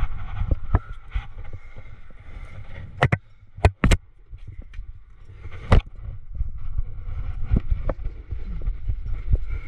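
Crack climbing on sandstone heard from a body-mounted camera: scuffs of hands and shoes on the rock and sharp metal clinks of the gear rack on the harness, three close together about three to four seconds in and another near six seconds. A steady low rumble of wind on the microphone runs underneath.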